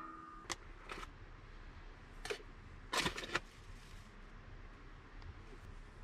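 A few light clicks and taps from a spoon scooping ground coffee into an AeroPress on a wooden counter, the loudest a quick cluster about three seconds in.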